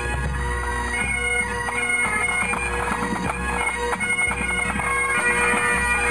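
Pipe band playing: Great Highland bagpipes sounding a tune over a steady drone, with a bass drum and side drums beating underneath.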